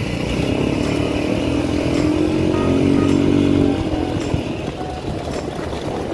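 Small minibike engine running under throttle while riding on a gravel road, climbing slightly in pitch and loudness for a few seconds and then easing off about four seconds in, over the rumble and rattle of the bike on the gravel.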